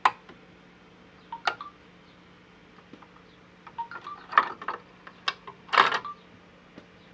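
Small metal clicks and clinks from handling the Brother LS-2125 sewing machine while a needle that fell inside is worked back out. There is a sharp click at the start and another about a second and a half in, then a cluster of clinks from about four to six seconds in.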